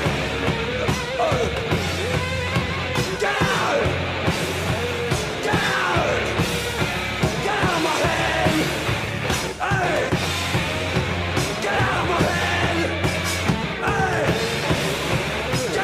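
Industrial punk rock from a studio session recording: a full band with drums, bass and guitar playing continuously, with falling pitch slides that repeat every couple of seconds.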